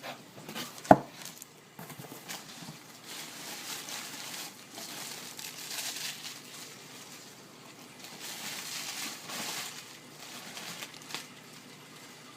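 Cardboard box and packaging being opened and handled, with rustling and crinkling in several stretches. A sharp knock about a second in is the loudest sound.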